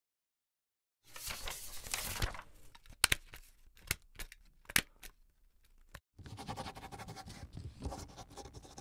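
Stapler sound effects: a stretch of crackly scraping noise, then three sharp clicks about a second apart, then more scraping noise.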